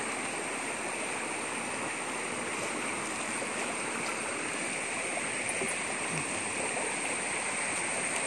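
Small rocky stream running over stones in shallow rapids: a steady rush of water.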